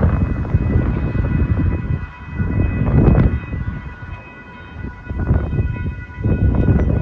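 Railroad crossing warning bells start ringing as the signals activate, several bells sounding together in steady tones. Heavy wind buffets the microphone.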